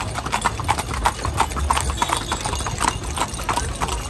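Hooves of a carriage horse pulling a calèche clip-clopping on a paved street, an even run of hoof strikes about five a second, over a low rumble.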